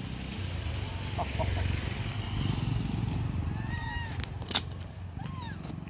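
Steady low street rumble with two short, high, rising-and-falling animal calls, one a little past halfway and one near the end. A sharp knock comes between them.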